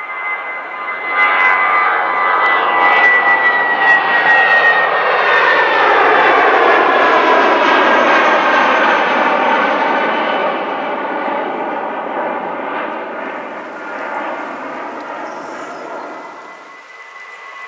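Airbus A319 jet airliner climbing out after take-off. The loud engine noise swells about a second in, and its whine slides down in pitch as the plane passes, then fades towards the end.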